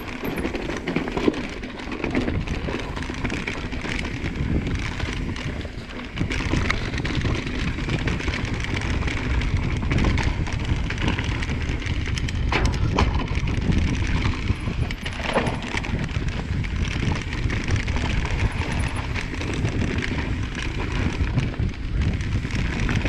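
Mountain bike riding along a dirt trail: steady rumble of tyres and wind on the microphone, with occasional clattering knocks from the bike over rough ground.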